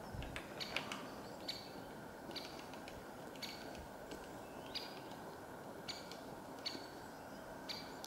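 Great spotted woodpecker giving short, sharp call notes, roughly one a second, over a steady low background hum.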